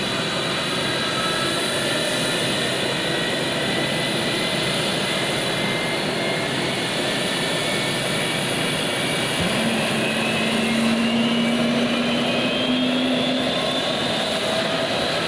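Boeing 737-200's Pratt & Whitney JT8D turbofan engines running, their whine rising steadily in pitch as they spool up. A lower steady tone joins about halfway through and fades a few seconds later.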